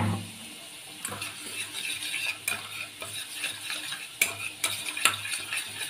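Metal spoon stirring and scraping in a stainless steel bowl, mixing ground spices with a little water into a paste. Irregular clinks and scrapes start about a second in.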